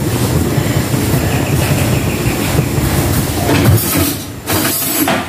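Steady rumbling hiss of a gas stove burner under a wok of bamboo shoots being blanched, dipping briefly about four seconds in.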